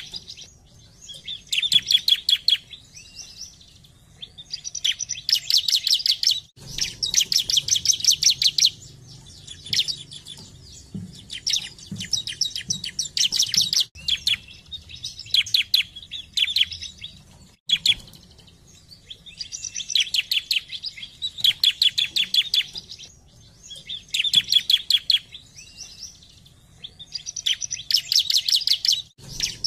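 Bar-winged prinia (ciblek) singing: phrase after phrase of rapid, sharp chattering notes, each phrase a second or two long with short pauses between.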